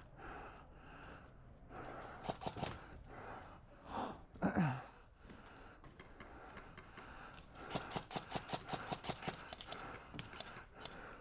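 Airsoft gun firing a rapid string of shots, about seven or eight a second, over the last few seconds, with a few scattered shots earlier. About four seconds in, a player lets out a short gasp that falls in pitch.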